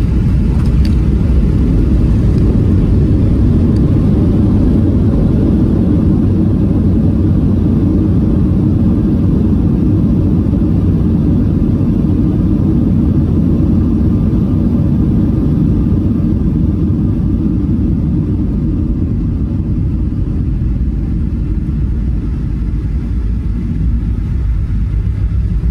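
Cabin noise aboard a Boeing 737-700 in flight: a loud, steady low rumble of the CFM56-7B engines and airflow, easing slightly near the end.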